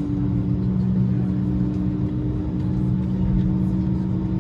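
Steady drone heard inside the cabin of an Airbus A321-231 with its engines running, a low rumble carrying two steady hums that do not change pitch.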